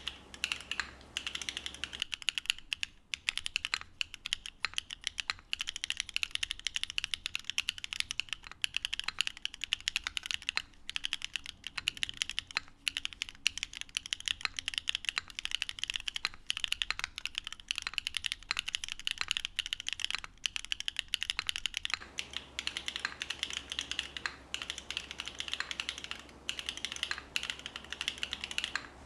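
Continuous fast typing on a Qwertykeys NEO70 custom mechanical keyboard with FOD Lucky linear switches (polycarbonate housings, 52 g bottom-out), a carbon-fibre plate and only case foam. The keys bottom out in a dense stream of clacks. It is heard through a camera microphone with more background hiss for about the first two seconds and again from about 22 seconds in, and through a cleaner dedicated mic in between.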